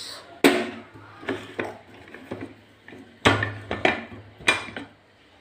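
Aluminium pressure cooker being handled to open it: a string of metal clanks and knocks from the lid and its handles, the loudest about half a second in and twice near the end.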